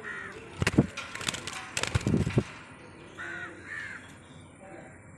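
African lovebirds calling with short chirps. About half a second in comes a loud, harsh burst of sharp clicks and rasping noise that lasts about two seconds, followed by more chirps.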